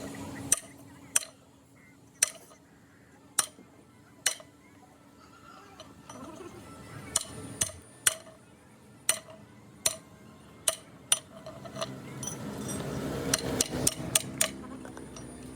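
Sharp metallic clinks and taps, irregular and about one a second, of hand tools striking steel parts of a truck gearbox, with a low rumble building behind them near the end.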